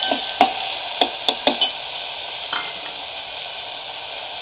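Chopped vegetables sautéing in oil and ghee in a pot, sizzling steadily, with a spoon stirring and clinking against the pot several times in the first second and a half.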